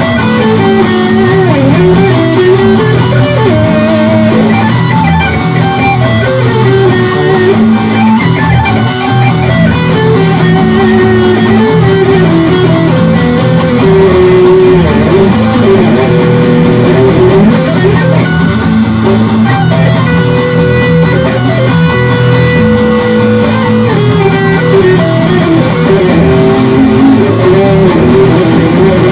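Electric guitar playing hard rock in E minor: a lead melody that slides and bends in pitch over a steady, repeating chord backing. The recording is loud and of poor sound quality.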